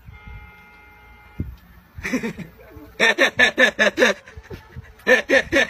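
Hearty laughter in quick ha-ha bursts, about five a second, each falling in pitch, beginning about three seconds in with a brief break before it resumes. Before it there is a faint steady tone and a single thump.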